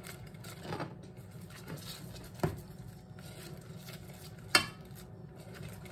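Silicone whisk stirring scrambled eggs in a saucepan, with soft scraping strokes. It knocks sharply against the pan twice, about two and a half and four and a half seconds in, the second knock the louder.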